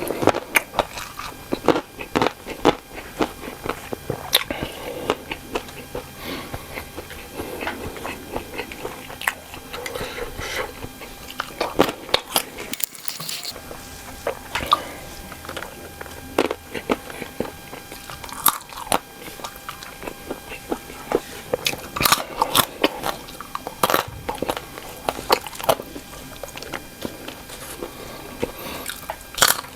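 Close-miked eating: biting and chewing cocktail sausages in green chilli sauce, with many sharp, irregular mouth clicks and wet chewing.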